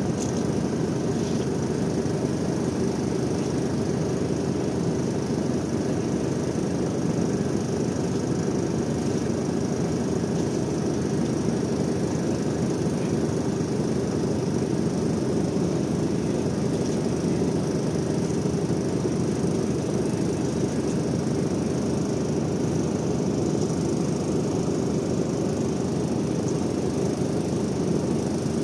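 Ship's engine running with a steady, unchanging low drone.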